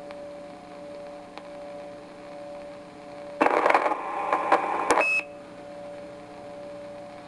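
Tram Titan CB base station receiving through its speaker: low hiss with a steady hum, then about three and a half seconds in a station keys up for under two seconds with a rough, noisy burst that ends in a short high roger beep.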